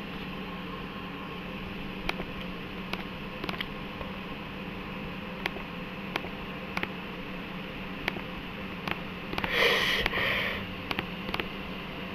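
Faint, scattered clicks of a laptop touchpad being pressed, every half second to a second, over a steady low hum. About ten seconds in, a louder noisy sound lasts about a second.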